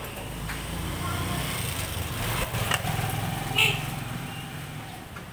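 Engine of a passing motor vehicle: a low rumble that swells and then fades away. A brief sharp, high-pitched sound comes about three and a half seconds in.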